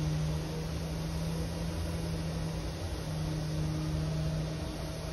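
Steady city traffic noise: a broad rumble with a low hum that drops out briefly about three seconds in.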